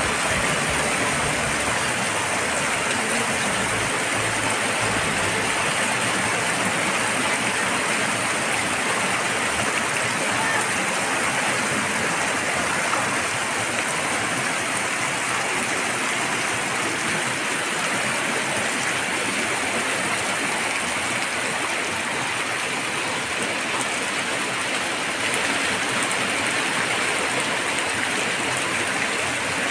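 Heavy rain pouring and floodwater rushing along a flooded street: a steady, even rush of water.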